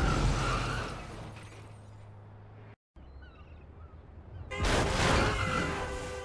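Dramatised car crash sound effect: a heavy impact with smashing glass and metal dies away, then after a brief cut a second crash hits about four and a half seconds in. Under it a car horn starts blaring steadily, as from a wrecked car with its horn stuck on.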